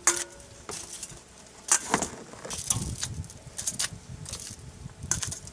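Metal tongs clicking and clattering as foil-wrapped potatoes are lifted off the grill grate and dropped into a metal bowl; the bowl rings briefly at the start, followed by a string of scattered metallic knocks.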